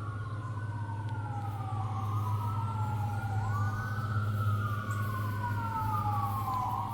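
Emergency vehicle sirens wailing, at least two out of step, each rising quickly and falling slowly in pitch, over a steady low hum.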